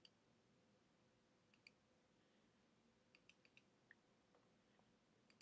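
Faint computer mouse clicks against near silence, mostly in close pairs, with a quicker run of several a little past three seconds in.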